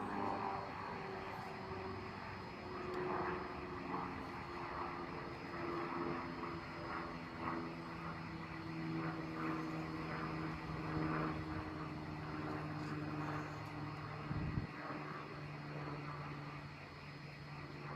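Steady drone of a distant engine, several hum lines held level throughout.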